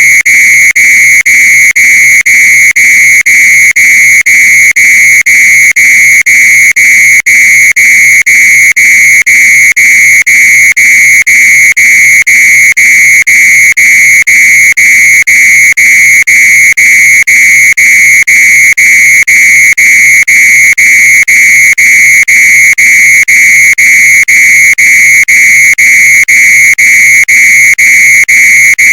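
Fire alarm sounding a loud, steady high-pitched tone, broken by very short dropouts several times a second.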